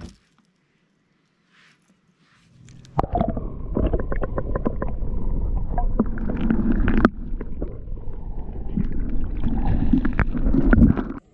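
Muffled gurgling and rushing of water around a submerged camera, with many scattered knocks and clicks. It starts about three seconds in after near silence and cuts off suddenly just before the end.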